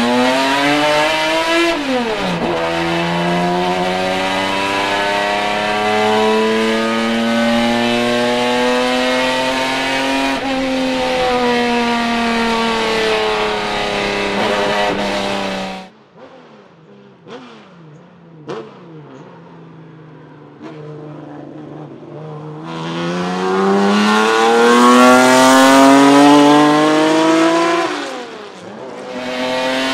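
Ford Capri 3100 RS racing car's naturally aspirated Cosworth V6 at high revs from inside the cockpit. It accelerates hard with a quick upshift about two seconds in, holds high, then falls in pitch as it slows. After a sudden cut at about 16 s it is heard from trackside: faint and distant at first, then revving up loud as the car approaches and passes. It switches back to the loud cockpit sound just before the end.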